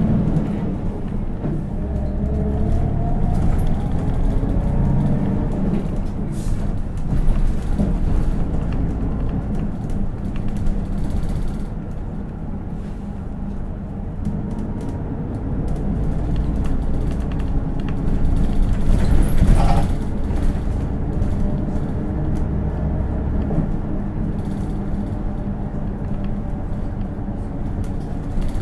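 Interior running sound of a Hino Blue Ribbon City KL-HU2PREA city bus's diesel engine and drivetrain. It accelerates with a rising whine over the first five seconds or so, then runs on with a steady low rumble. There is a short whine about twenty seconds in.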